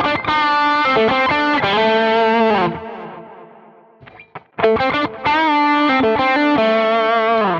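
Electric guitar played through a Quad Cortex preset on a Lone Star amp model, with an RC Booster driving an Obsessive Drive overdrive: two phrases of held, distorted chords with a few muted scratches between. The booster adds little volume here, because the overdrive absorbs it and mainly makes the tone more saturated.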